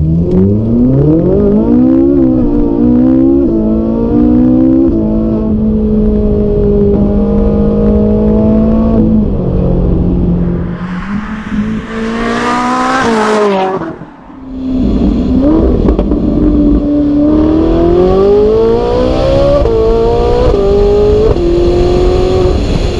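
Ferrari 458 Italia's naturally aspirated V8 revving hard through quick upshifts, then holding a steady note. About half way it rises in a steep sweep as the car passes close, drops away, then pulls through the gears again with rapid upshifts near the end.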